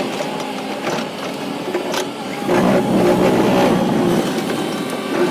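Large Volvo excavator breaking rock with a hydraulic ripper attachment: the engine runs under load and the attachment makes a fast mechanical rattle, with sharp knocks, louder about halfway through.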